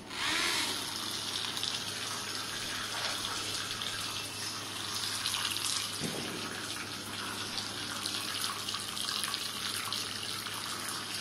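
Homemade motor boat's small battery-powered motor and fan running in a tub of water, giving a steady rushing, splashing hiss like a running tap. It starts suddenly as the boat is switched on.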